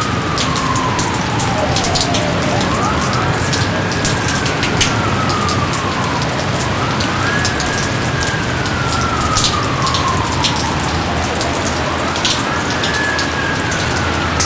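Steady heavy rain, with single drops ticking sharply close by. Over it, a whistled call rises quickly and then slides slowly down over two or three seconds, repeated three times.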